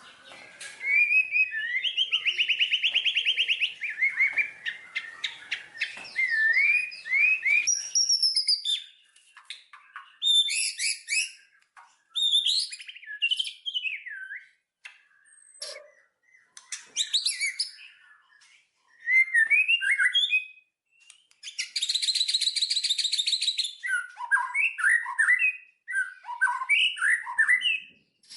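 Birds chirping and singing: a run of short whistled notes and chirps with pauses between phrases, a fast trill early on, and a loud, buzzy rapid trill about three-quarters of the way through.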